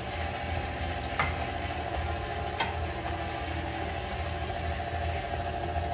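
KitchenAid Classic Plus stand mixer running steadily at low speed (setting 2), its beater churning cake batter in the stainless steel bowl. Two faint clicks come through, about a second and two and a half seconds in.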